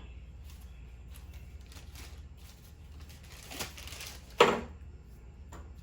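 Light clicks and ticks of small parts and tools being handled in a truck's engine bay, with a sharp knock about four and a half seconds in, over a steady low hum.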